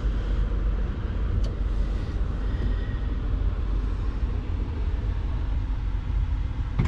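Wind buffeting the action camera's microphone in a snowstorm: a steady, rough low rumble, with a small click about a second and a half in.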